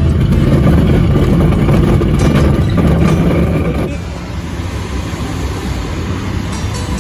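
Rumbling noise of a glider's aerotow takeoff roll heard from inside its cockpit. It drops suddenly about four seconds in to a steadier, quieter rush of airflow as the glider flies under tow.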